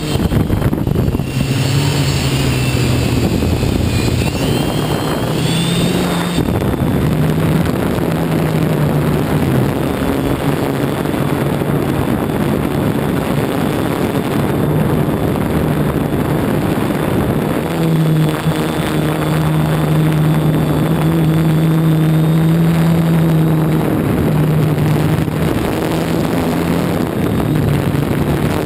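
Hexacopter's electric motors and propellers whirring close to the onboard camera, with a constant rushing noise. The motor tone wavers up and down in pitch for the first few seconds as the throttle changes, then holds steadier from about two-thirds of the way through.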